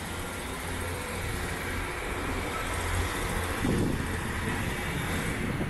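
Northern diesel multiple unit pulling away from the station platform, its engine a steady low drone.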